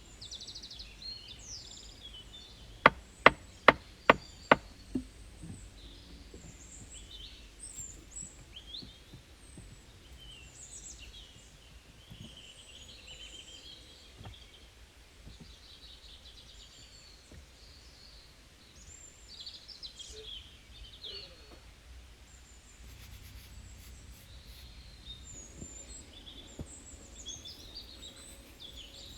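Wild birds chirping and calling throughout. About three seconds in come five sharp knocks in quick, even succession, the loudest sounds.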